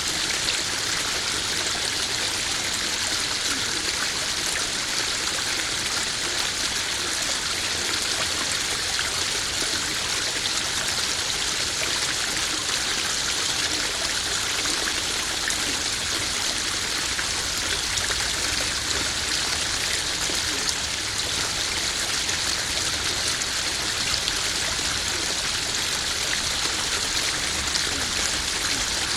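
Small garden waterfall splashing steadily into a koi pond, a continuous even rush of running water.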